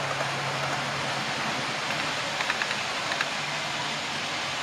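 Model trains running on the layout track: a steady rushing rumble of wheels on rail with a low electric-motor hum that drops away about a second in and returns near the end, and a few light clicks in the middle.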